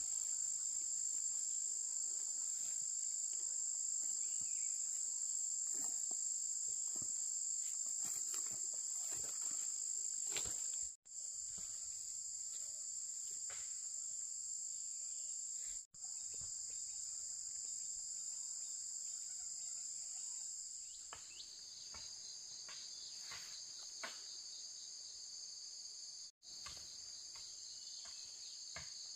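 Steady, high-pitched chorus of insects chirring without pause, with a few faint knocks and taps underneath. The chorus drops out for an instant three times, and from about two-thirds of the way through it is quieter and slightly changed in pitch.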